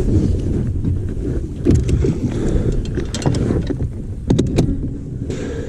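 Wind buffeting the microphone on an open boat as an uneven low rumble, with a few sharp knocks and clicks about two, three and four and a half seconds in.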